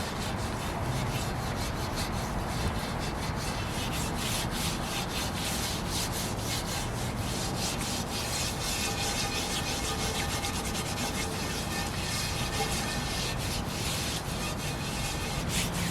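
Steel wool scrubbing a rusty cast iron skillet coated in baking soda paste, in steady rapid back-and-forth strokes to knock off the rust.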